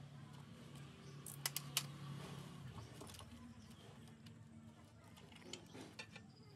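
Hands working an engine's wiring harness and plastic electrical connectors: a few sharp plastic clicks about a second and a half in, more light clicks near the end, with rustling of wiring between them.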